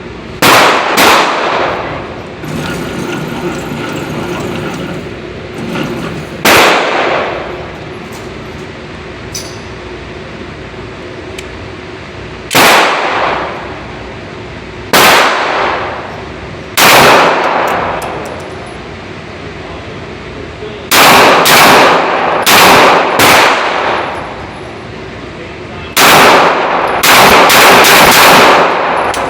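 Gunshots at a shooting range, about fifteen in all. Single shots come several seconds apart, then quicker strings of shots follow in the second half. Each shot is loud enough to overload the recording.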